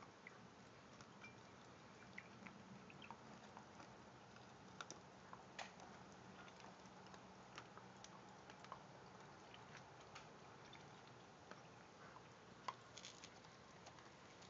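Domestic duck dabbling its bill in a shallow bowl of water: faint, scattered clicks and patter, with one sharper click near the end.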